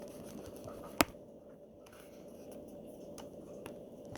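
Slime being stirred in a bowl as it clumps up with borax activator: quiet sticky mixing sounds with a few faint ticks, and one sharp click about a second in.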